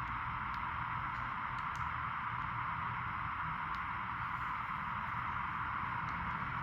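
Steady hiss with a low hum underneath and a few faint, short clicks.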